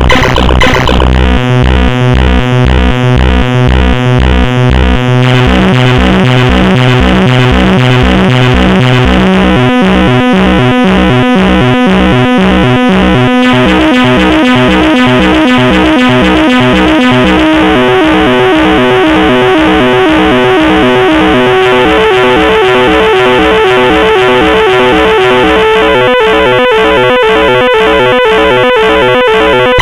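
Loud synthesizer music in the manner of a fake anti-piracy glitch sequence: a pulsing low beat under stepping keyboard notes, the notes climbing and falling in a repeating pattern.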